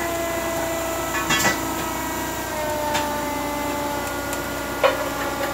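Forklift hydraulics whining steadily under strain while pulling a heavy load chained to the mast, the pitch sagging slowly. Short metallic clanks and knocks from the chains and the load come about one and a half seconds in, at three seconds and near the end, the one near the end the loudest.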